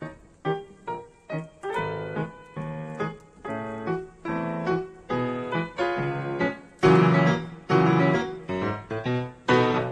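Background piano music: a melody of separate struck notes, roughly two a second.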